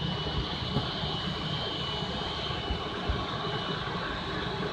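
Boeing 777-200ER jet engines running at taxi power: a steady rush with a thin, high, steady whine.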